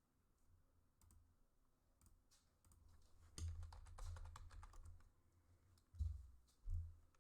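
Typing on a computer keyboard: scattered faint keystrokes, then a quick run of keys in the middle, and two heavier knocks near the end.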